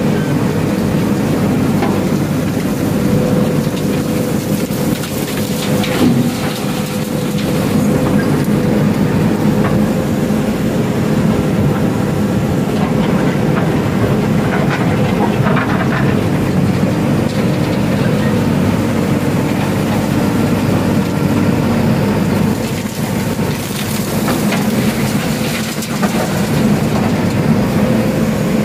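Diesel engine of a JCB backhoe loader running steadily under hydraulic load, heard from inside the cab while the backhoe arm works, with a few knocks.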